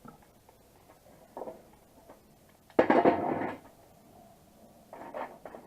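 Metal work on a broken exhaust manifold stud: light clinks and knocks of tools on metal, with one short, loud, rasping burst about three seconds in.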